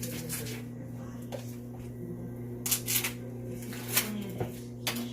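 Plastic packaging of a tray of raw chicken breasts being pulled open: scattered sharp crackles and snaps of the plastic, about half a dozen over a few seconds, over a steady low hum.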